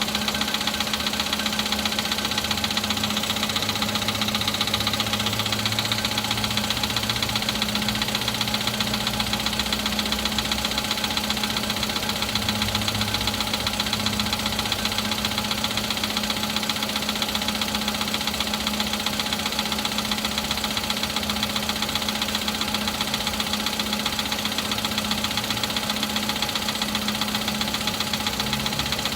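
Volkswagen Polo's 1.6-litre CFNA four-cylinder petrol engine idling cold with a steady, rapid knock. This is a cold-start knock that fades once the engine warms, put down to the pistons, which were replaced under warranty.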